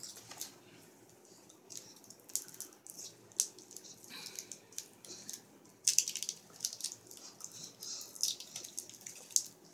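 Crinkling and crackling of a wrapper being handled to open a sea salt caramel, in irregular sharp crackles that grow busier about six seconds in.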